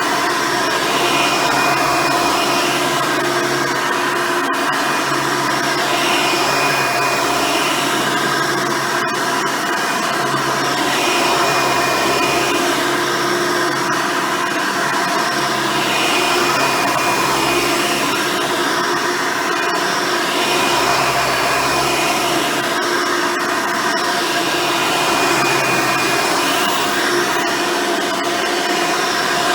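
Hoover Elite upright vacuum cleaner running steadily, its original 7-amp motor and 7-blade fan giving a constant whine, with the single-row brush roll working the floor. The sound swells and eases about every two seconds.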